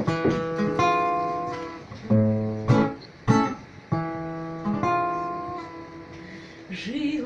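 Acoustic guitar playing a song's introduction: strummed chords, each left to ring and fade before the next stroke.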